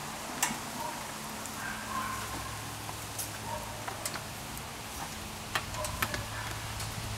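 Quiet outdoor ambience: a steady low hum under an even hiss, with a few faint rustles and scattered sharp clicks.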